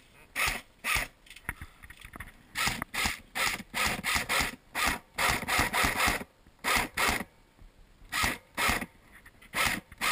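An airsoft high-capacity magazine being wound by its thumb wheel, ratcheting in short strokes about two to three a second, in runs with brief pauses between them.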